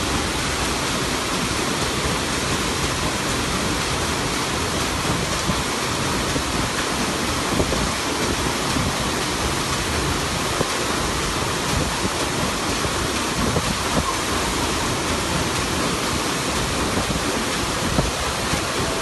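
Stern paddle wheel of the steamboat Natchez churning the river: a steady rush and splash of water.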